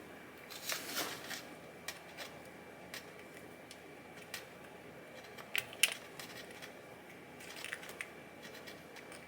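Small metal engine parts and hand tools being handled: scattered light clicks and clinks, with a few brief scraping rustles about a second in, near the middle and near the end.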